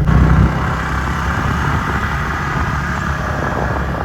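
Motor vehicle running on the road: a steady low engine hum with rushing wind and road noise.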